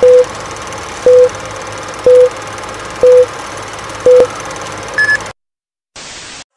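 Film-leader countdown sound effect: a short beep with a click about once a second over a steady hiss and low hum, then a single higher-pitched beep to end the count. The sound cuts off suddenly, and after a short gap comes a brief burst of static.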